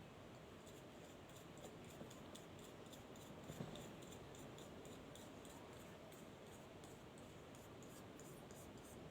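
Faint, quick clicks and scratches, roughly four a second, with a soft knock about three and a half seconds in.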